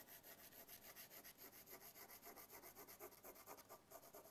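Faint pencil lead scratching on drawing paper in quick, even back-and-forth hatching strokes, several a second. The lines are being laid densely over and over to build up the tone of a shaded area.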